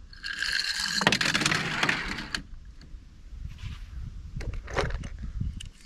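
A car whooshing off: a loud rush of engine and tyre noise that lasts about two seconds, then a quieter low rumble with a few light clicks.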